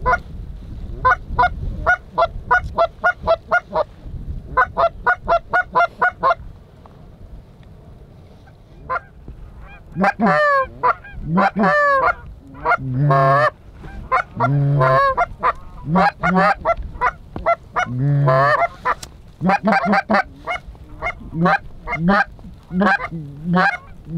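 Canada goose honks and clucks: two fast runs of short, evenly spaced clucks, a pause of a few seconds, then longer honks that bend in pitch, mixed with deeper moaning calls, carrying on to the end.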